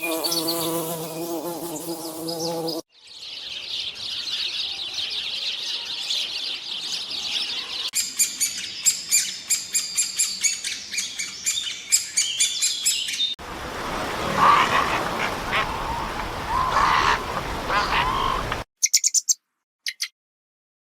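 A run of separate farm-bird recordings: a pitched call first, then dense high chirping with rapid repeated chirps, then duck-like quacking calls. A few short chirps come near the end before the sound cuts to silence.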